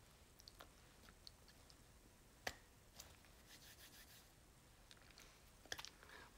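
Near silence: quiet room tone with a few faint small clicks, one sharper click about two and a half seconds in and a short cluster of clicks near the end.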